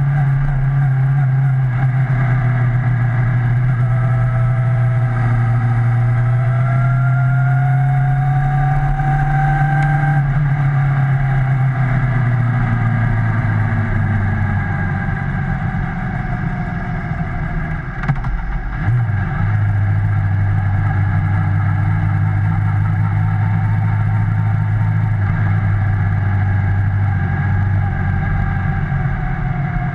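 Motorcycle engine running steadily under the rider, heard from a camera mounted on the bike. The engine note falls about halfway through as the bike slows, with a brief knock a little later, then holds steady at a lower, even pitch.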